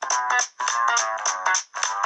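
Samsung Galaxy Note 9 ringtone playing: a bright electronic melody in short repeating phrases, about two a second, with brief gaps between them.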